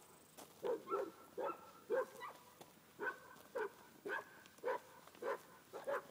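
A dog barking over and over in a steady run of short barks, about two a second.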